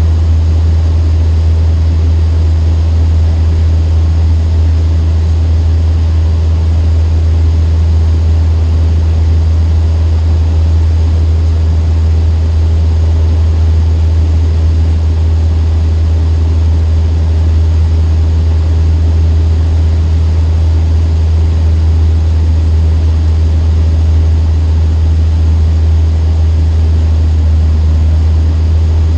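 Cessna 152's four-cylinder piston engine and propeller droning steadily, heard inside the cockpit in flight: a loud, deep hum that holds one pitch.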